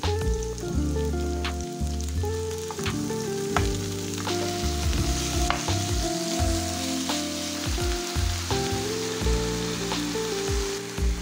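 Sliced onions and diced chicken sizzling in oil in a nonstick frying pan, stirred with a wooden spoon that knocks against the pan now and then.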